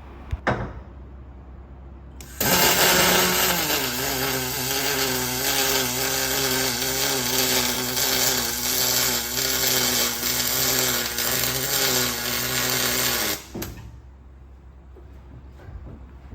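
Fronius MIG welder laying an aluminium weld: the arc strikes about two seconds in, with a harder hot-start phase for its first second or so, then settles into a steady hiss with a buzzing hum. It cuts off sharply about eleven seconds later.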